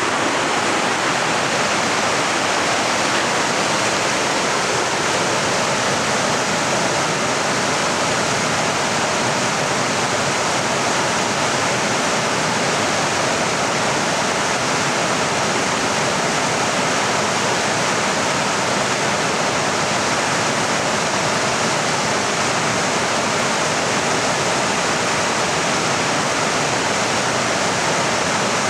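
North Fork Quinault River rushing over a rocky bed: a steady, loud whitewater rush that holds even throughout.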